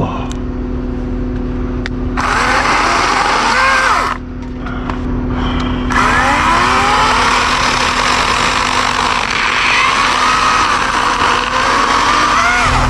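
Wild Badger 40-volt electric chainsaw cutting through tree limbs in two bursts, a short one about two seconds in and a longer one from about six seconds in, its pitch sliding as the chain loads and frees. A steady low engine hum, the bucket truck idling, runs underneath.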